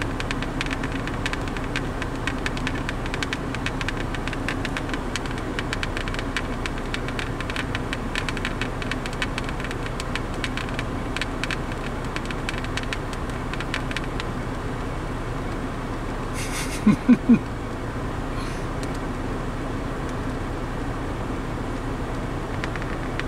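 Vehicle engine idling steadily, heard from inside the cab, with a fine irregular ticking over the hum. About two-thirds of the way through come three short, loud, low beeps in quick succession.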